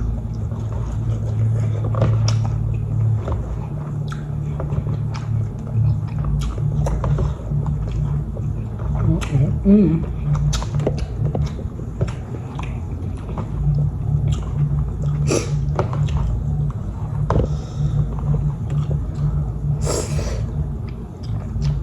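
Close-up eating sounds: chewing, smacking and slurping of ramen noodles, with a louder slurp-like burst about fifteen seconds in and again near the end. A steady low rumble runs underneath.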